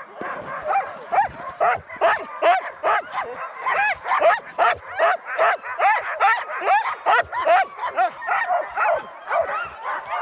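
A team of harnessed sled dogs barking and yelping, many short rising-and-falling calls about two or three a second, overlapping each other. The dogs are waiting in harness at the start line.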